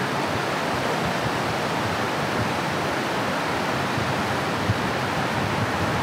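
Waterfall and rocky jungle stream rushing steadily, a continuous even sound of falling water.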